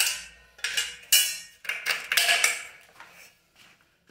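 A series of sharp metallic clinks and scrapes, about six in quick succession, each with a short ringing tail, dying away in the last second.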